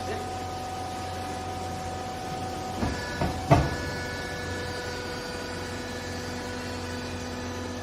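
TCM-LP30 vertical hydraulic baler running with a steady hum. Three short knocks come about three seconds in, the last the loudest, and the pitch of the hum changes after them.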